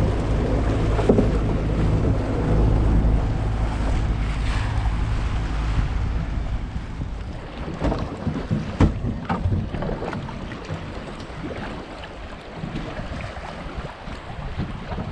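Motorboat engine running with a steady low hum, under wind buffeting the microphone and the sound of the sea. The hum eases about halfway through, and a few sharp knocks and clicks follow.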